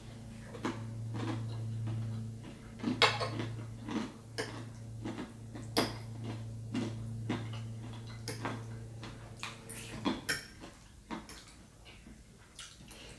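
A metal fork clinking and scraping on a plate in a series of sharp clicks, along with chewing. Under it runs a steady low hum from a neighbour's lawn mower, which stops about ten seconds in.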